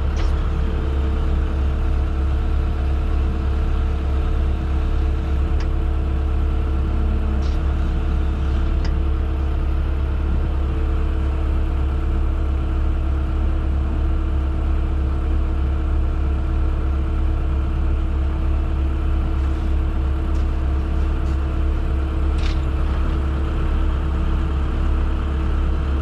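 Engine running steadily at a constant speed, a low unchanging drone with a few faint clicks over it.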